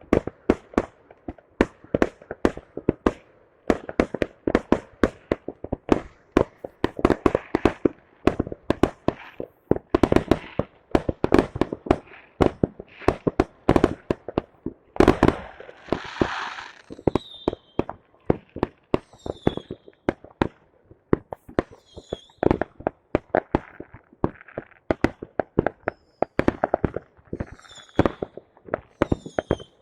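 Fireworks going off in a rapid, irregular barrage of sharp bangs, several a second. A hissing crackle comes about halfway through, and a few short, high falling whistles sound in the second half.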